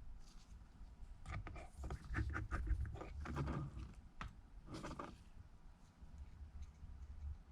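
Small clicks, taps and light scrapes of a precision screwdriver and tiny screws being handled and driven into an iPad Air's metal plate. The clicks come in a cluster early on and once more about five seconds in.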